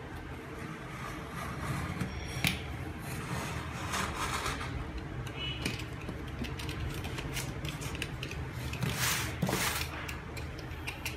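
Hands handling packaging and papers: scattered light clicks and taps, with several brief rustling scrapes, the longest a little after nine seconds in.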